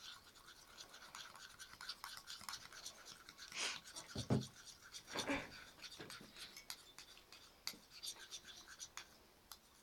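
A spoon stirring a runny glue, water and paint slime mixture in a bowl: faint, irregular scraping with light clicks, and two louder scrapes about four and five seconds in.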